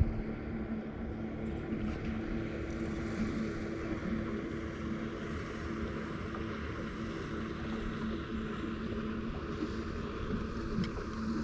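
Boat motor running steadily, a constant hum with a faint tone, over water and wind noise.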